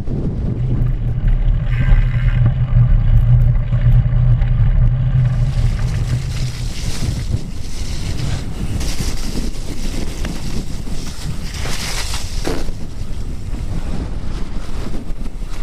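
Wind buffeting the microphone of a camera on a mountain bike riding over rough moorland track, with rumble from the tyres and bike. The low rumble is heaviest for the first several seconds, then gives way to a broader hiss.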